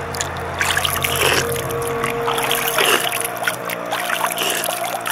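Shallow, fast river water rushing and splashing close to the microphone as a hand dips into it, with a steady music bed underneath.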